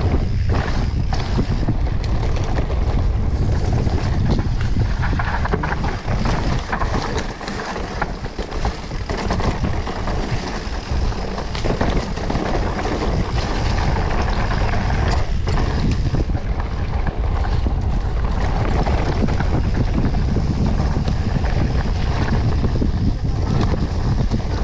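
Mountain bike ridden over a rough dirt trail: wind buffeting the camera microphone, with the rattle of the bike and tyres over the ground as a stream of quick clicks and knocks.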